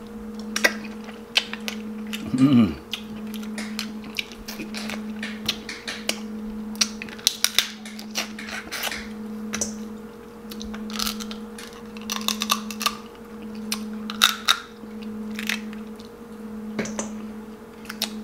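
Close-miked mukbang eating of crab and shrimp from a seafood boil: wet lip smacks, chewing and sharp clicks of shell being picked apart, over a steady low hum. About two and a half seconds in, a short voiced sound slides down in pitch.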